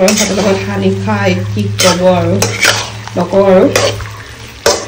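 A metal spatula scraping and clanking against a kadai as a pork and potato curry is stirred, with a light sizzle from the pan. A person's voice runs underneath.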